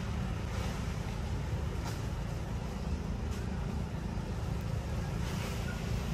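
Steady low rumble of outdoor background noise, with a few faint brief rustles.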